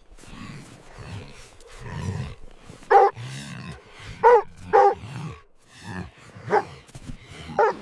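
A dog barking in short, sharp single barks, about five spread irregularly over several seconds, over a low rumble.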